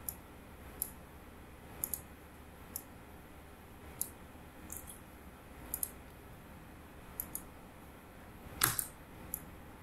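Computer mouse clicking at irregular intervals, some clicks in quick pairs, with one louder, fuller click near the end, over a faint steady hiss.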